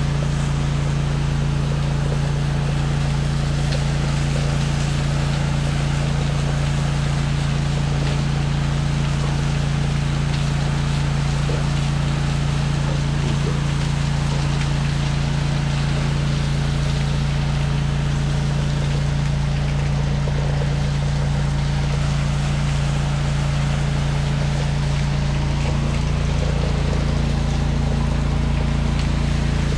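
Pressure washer engine running at a steady speed under load, with the even hiss of water spraying from the wand during the rinse.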